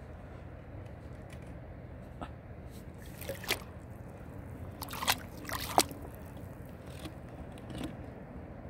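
Gloved hands digging in wet sand and shallow water among rocks: sloshing and squelching scrapes, with a few sharp clicks near the middle.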